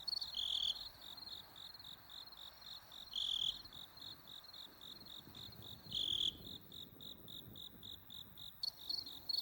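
Insects chirping in a steady rapid rhythm, several short chirps a second, with a louder, longer chirp breaking in three times, about every three seconds.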